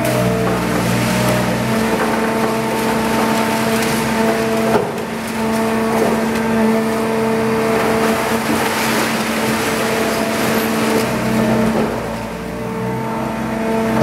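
Hydraulic scrap baler running with a steady machine hum while metal scrap clatters into its hopper from a grapple. There is a sharp knock about five seconds in, and a heavier stretch of rattling metal a little past the middle.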